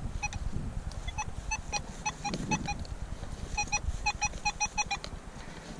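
Metal detector sounding a run of short, quick target beeps on one pitch, in two bursts as the coil passes back and forth over a target. Low wind rumble on the microphone underneath.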